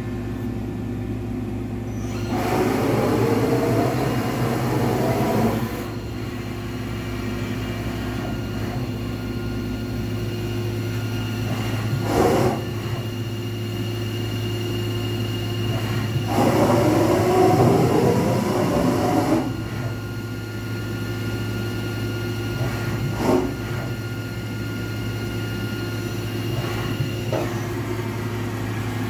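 Johnford DMC-2100H CNC bridge mill running with a steady hum. Twice there is a spell of louder whirring machine noise lasting about three seconds, a couple of seconds in and again past midway, and there are a few short sharp clicks.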